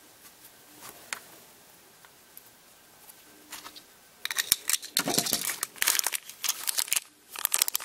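Thin clear plastic parts bag crinkling as it is handled, in dense crackly bursts from about four seconds in, after a few faint clicks.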